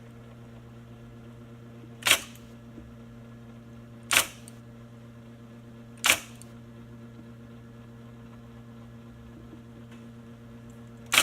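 IBM Selectric II electric typewriter with its motor running in a steady hum, keys struck one at a time in slow hunt-and-peck typing: four single sharp strikes about two seconds apart, then a longer gap before the last one near the end.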